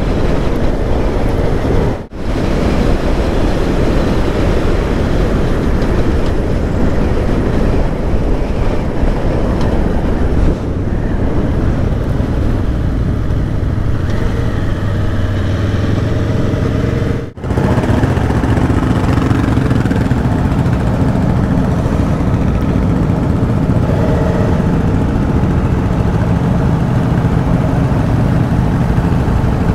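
Aprilia Tuono V4 1100's V4 engine running on the move, under a steady rush of riding noise. The sound cuts out sharply twice: once about two seconds in and once just past halfway.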